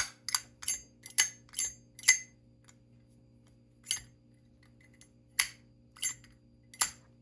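Brass Zippo lighter's hinged lid being flicked open and snapped shut, making sharp metallic clicks. Six come in quick succession, then four more follow with gaps of about a second.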